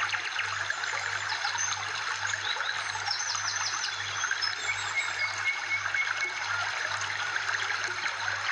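Water trickling steadily, with short, high bird-like chirps over it.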